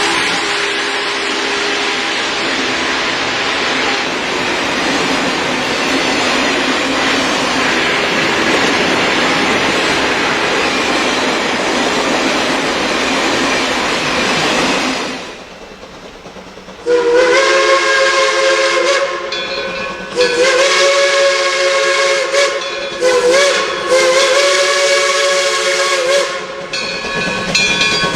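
Steam locomotive letting off a loud, steady hiss of steam, which dies away; then its chime whistle sounds several long blasts in a row.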